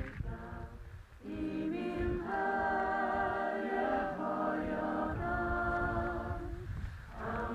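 Choir singing a cappella in slow, held chords, phrase by phrase with short breaks between.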